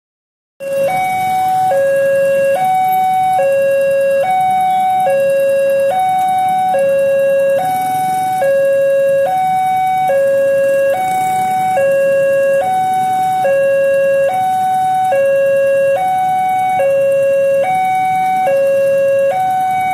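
Indonesian railway level-crossing warning alarm, an electronic two-tone signal alternating steadily between a lower and a higher note, each held just under a second. It is the crossing's warning that a train is approaching.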